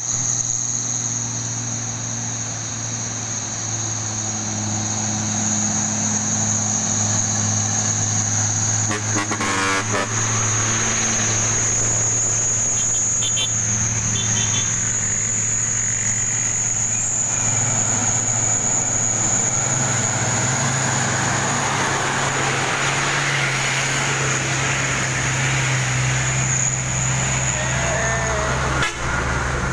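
Old Nissan diesel trucks and motorcycles climbing a hill road, the engines labouring and growing louder in the second half as a truck draws close, over a steady high-pitched insect buzz.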